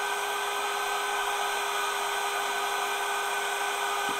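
DJI Air 2S quadcopter's propeller motors running at a steady high whine after spinning up, one held tone with a hiss of propeller wash over it.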